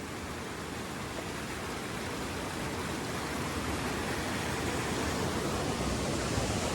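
Rushing water of a creek tumbling over many small waterfalls, a steady even roar that grows gradually louder.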